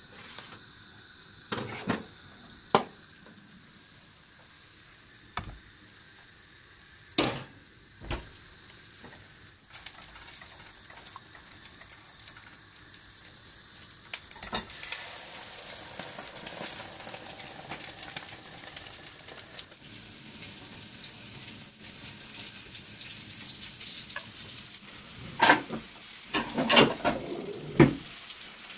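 Food sizzling with a steady hiss that sets in about ten seconds in and grows stronger, after a few sharp knocks of kitchenware; several loud clatters come near the end.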